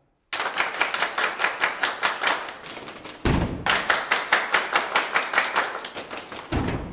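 A group of men clapping in a quick, even rhythm. About three seconds in, heavy foot stomps on a wooden stage join the claps, and another round of stomps starts near the end.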